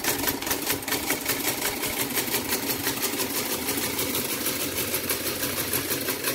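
Singer treadle sewing machine stitching under foot power, its needle and mechanism making a rapid, even clatter.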